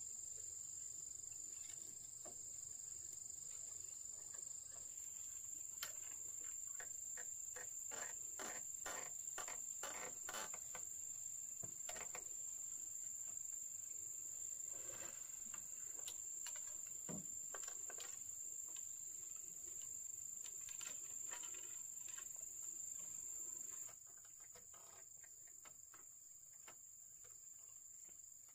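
A steady, high-pitched drone of insects, with a run of scattered knocks and taps in the middle. The drone drops suddenly in level near the end.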